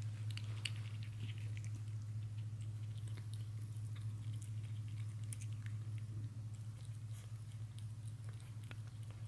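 A cat eating soft tuna off a plate: many small, irregular wet clicks and smacks of licking and chewing, over a steady low hum.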